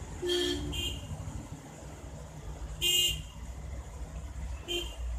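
Vehicle horns tooting in short blasts, four of them, over a steady low rumble of road traffic.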